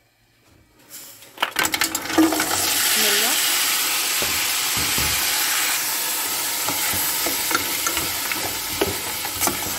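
Walnuts and dried fruit poured into hot oil in an aluminium pot: a brief clatter, then a steady loud sizzle starting about a second and a half in, with spatula scrapes and clicks as they are stirred.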